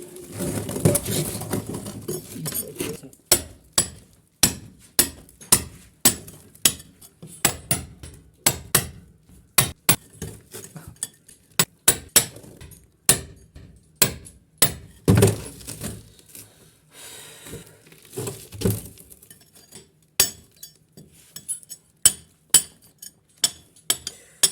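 Hand hammer blows chipping at a masonry wall: a long run of sharp clinking strikes, about one or two a second and unevenly spaced. Crumbling debris falls with the blows near the start and again partway through.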